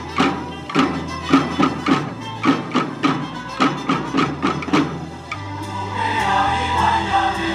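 A group of Basque tamborrada drummers beating small barrel drums with sticks in a brisk, regular marching rhythm. About five seconds in, a choir starts singing over the drums.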